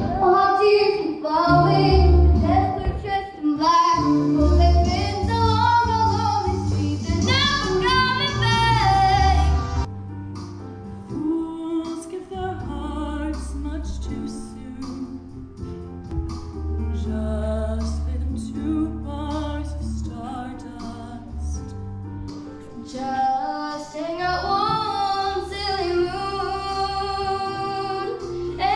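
A stage musical number: girls' voices singing over accompaniment with a steady bass line. About ten seconds in it drops to a quieter, sparser passage, and a single girl's voice sings out again near the end.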